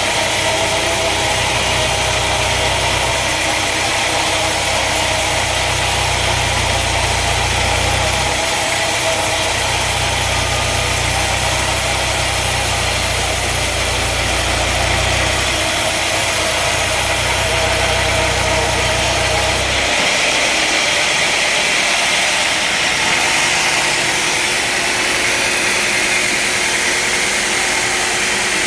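Woodworking machinery running with a steady mechanical noise and a low hum. The hum drops out about two-thirds of the way through, leaving a higher-pitched hiss.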